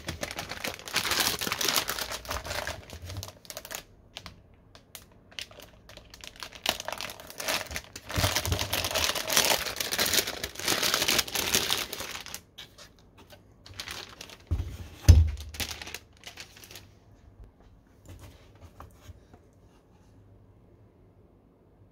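Metallised anti-static bag crinkling and rustling as a motherboard is handled and slid out of it, in two long stretches, then a few shorter crinkles and a dull thump about fifteen seconds in.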